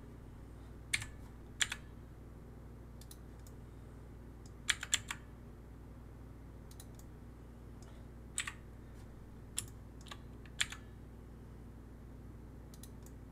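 Computer keyboard and mouse clicks, about a dozen scattered sharp clicks with a short cluster about five seconds in, over a faint steady electrical hum.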